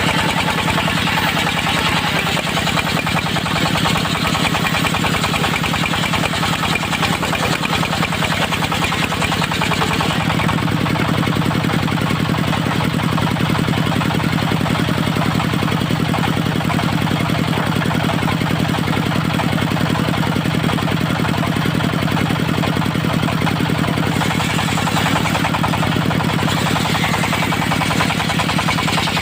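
Engine of a portable circular-saw sawmill running steadily with a rapid, even firing beat; its tone shifts slightly about ten seconds in.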